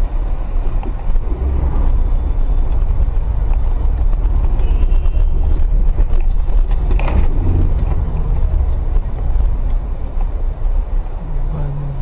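A moving car recorded on a dashcam: steady low road and engine rumble, with a short sharp noise about seven seconds in.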